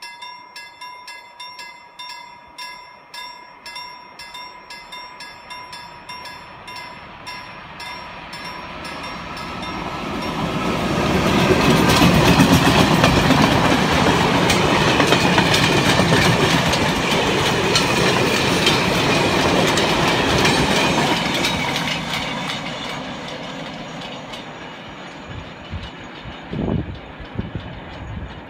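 Level-crossing warning bell ringing about twice a second, then a VR class Sr1 electric locomotive and its freight wagons pass close by: a loud rumble with wheels clicking over the rails, swelling about ten seconds in and fading as the train moves away. A single thump near the end.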